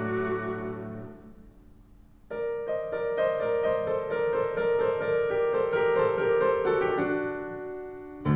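Recorded music played back on a hi-fi system with Yamaha NS-1000MM speakers: the preceding passage dies away over the first two seconds, then a piano comes in sharply with held notes that slowly fade.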